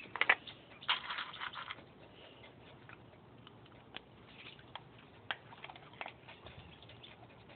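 Small dog taking treats from a hand and crunching them: faint scattered clicks and crunches, with a short rustle about a second in.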